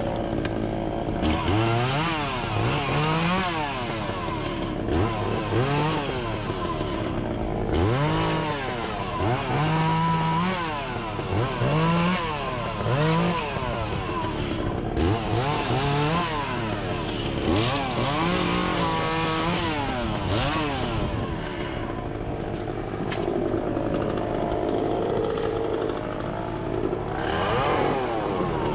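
Echo CS-400 two-stroke chainsaw revved in short bursts, its pitch rising and dropping back about once a second, as in cutting limbs. Near the end it runs more steadily at a lower speed.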